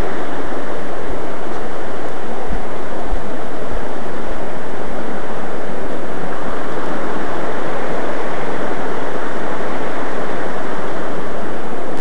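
Loud, steady rush of water running over rocks in a forest stream, with a few low thumps about two and a half to three and a half seconds in.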